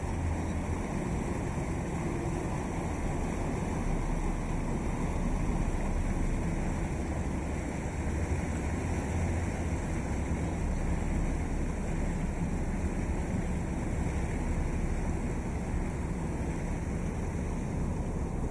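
A boat under way on a river: a steady low engine rumble with water rushing against the hull and wind on the microphone.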